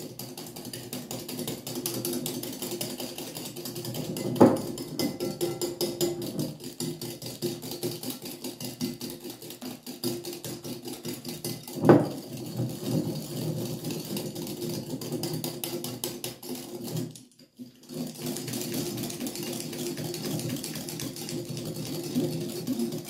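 Hand whisk beating eggs and sugar in a glass bowl: a fast, even rhythm of the whisk clicking and scraping against the glass. There are two louder knocks, about four and twelve seconds in, and a brief break about three-quarters of the way through.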